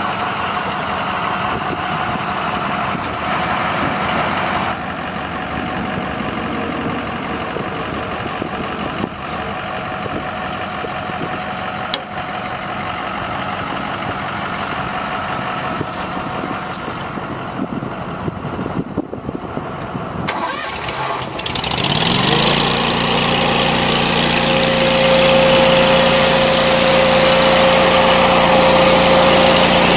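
An engine idling, then about two thirds of the way through a small engine on the service truck's bed starts, its pitch rising quickly, and settles into steady, louder running.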